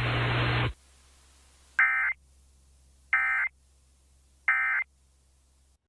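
Emergency Alert System End-of-Message data bursts: three short, identical raspy warbles of digital tones, about a second and a half apart, signalling that the alert is over. Before them, a loud hiss on the broadcast audio cuts off suddenly under a second in.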